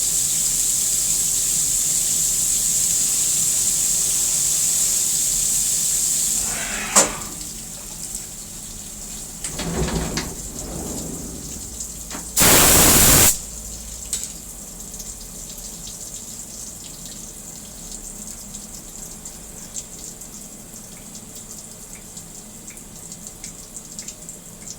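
Coolant spraying and hissing inside a Haas CNC mill's enclosure. The spray stops about a quarter of the way in, leaving quieter dripping and ticking, with a sharp click and, about halfway, a loud one-second burst of spray or air.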